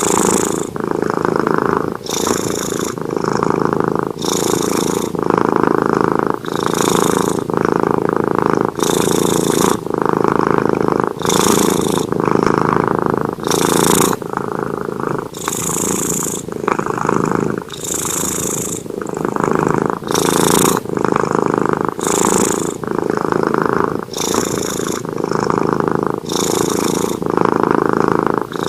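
Sleeping cat purring, loud and continuous, the purr changing with each breath in and out, about one breath every two seconds.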